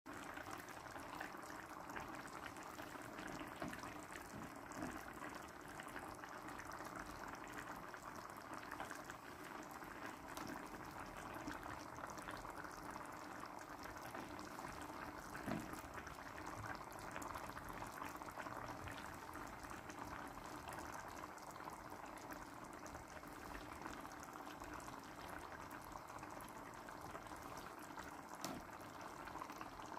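Tomato sauce simmering in a wide steel pan as meat-filled dough dumplings cook in it: a steady bubbling with scattered small pops.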